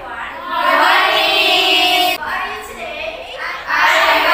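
A class of teenage girls singing together in unison, holding long notes, quieter for a moment about two seconds in and louder again near the end.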